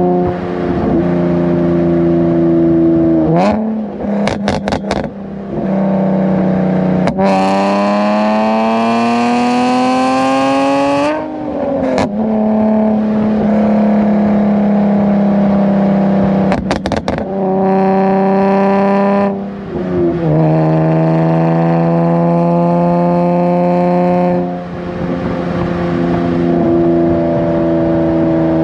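Nissan 370Z's 3.7-litre V6 with PPE headers driving: the exhaust note holds steady, then rises in pitch through two acceleration pulls, about a quarter of the way in and again past the halfway mark, dropping back after each. Short clusters of sharp cracks come a few seconds in and shortly before the halfway point.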